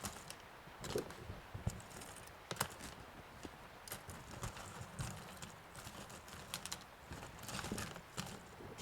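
Irregular light clicks and taps of small tools and parts being handled on a phone repair bench.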